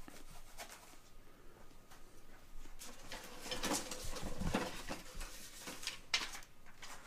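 Soft rustling and scuffing from a sheet of packing foam being handled, louder for a couple of seconds in the middle, with a single sharp click near the end.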